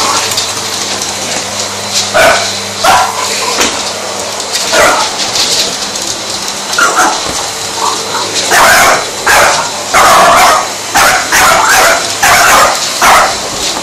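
A French Bulldog puppy barks and yips again and again, in short, loud barks that come faster and closer together from about eight seconds in. Underneath is the steady hum of a running vacuum cleaner.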